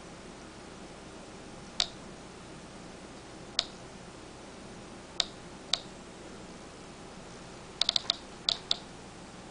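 Home-made Geiger counter clicking through its small speaker: about ten sharp clicks at random intervals, with a quick run of four a little before the end. Each click is one detected radiation count, here from radioactive dictyonema shale.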